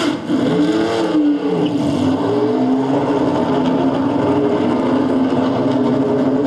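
Car engine sound that revs up and back down about a second in, then runs steadily, used as the noise of a cardboard prop car being driven on stage.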